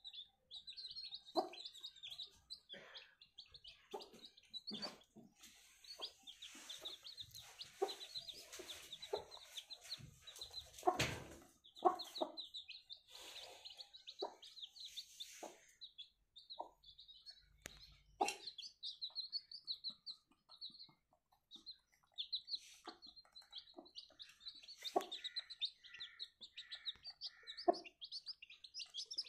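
Newly hatched chicks peeping constantly in short, high chirps, with a hen clucking low every second or so. A stretch of rustling and a thump come about halfway through.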